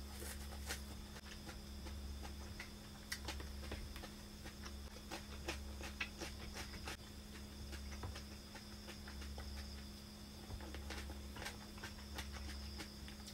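Close-up chewing of a mouthful of fresh herb leaves: irregular crisp crunches and wet mouth clicks. A steady low hum runs underneath.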